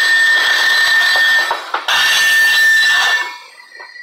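Covered hopper freight cars rolling past at close range, a loud rush of wheels on rail with a steady high tone over it. The noise falls away sharply about three seconds in as the last car clears.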